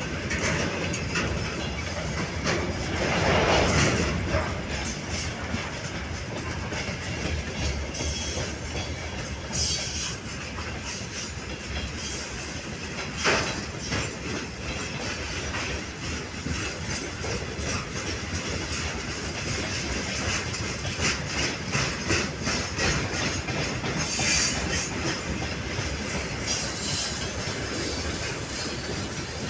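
Freight wagons, open gondolas and then tank cars, rolling past on the rails: a steady rumble with the wheels clacking over the rail joints. It is loudest about three to four seconds in, with one sharp clack about thirteen seconds in.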